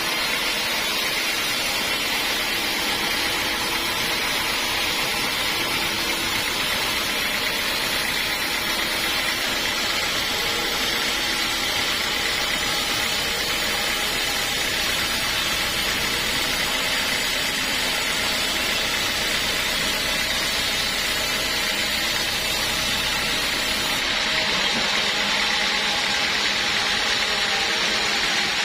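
Sawmill saw machinery running steadily, a continuous whirring hiss that keeps an even level throughout.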